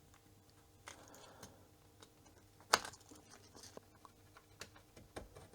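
Faint scraping and small clicks of hands prying at the plastic case and circuit board of an old calculator, with one sharper click a little before the middle; the board is held by glue along the sides.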